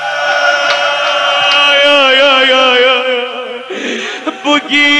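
A male eulogy reciter singing a Persian lament in long, wavering melismatic held notes. A short noisy break comes about three and a half seconds in, and then he takes up the next held note.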